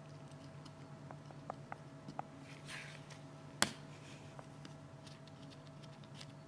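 Faint light clicks and taps of small parts being handled, with one sharp click about three and a half seconds in, over a steady low electrical hum.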